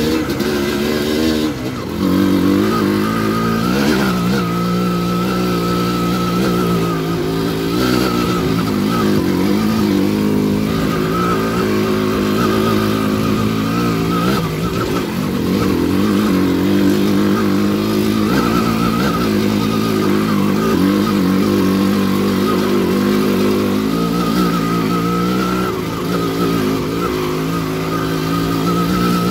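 Kawasaki KMX125 single-cylinder two-stroke dirt bike engine running under way on a trail, its note rising and falling with the throttle, with a brief drop in revs about a second and a half in.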